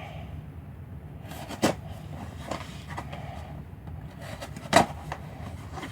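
Packaging being handled and opened by hand, with a few sharp knocks and scrapes, the loudest about a second and a half in and near the end, over a low steady hum.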